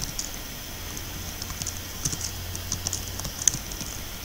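Typing on a computer keyboard: irregular keystroke clicks at a moderate pace, with one sharper key strike about three and a half seconds in.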